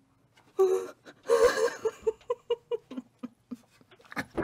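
A woman squealing in disgust and then whimpering in a run of short, quick cries that drop lower in pitch, with a sharp click near the end.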